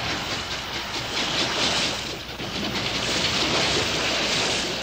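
Cartoon sound effect of a paddle steamer getting under way: a steady rushing noise of churning water and steam, dipping briefly about two seconds in.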